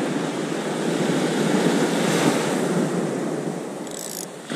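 Sea waves breaking and washing up the beach, with wind on the microphone; the wash eases near the end.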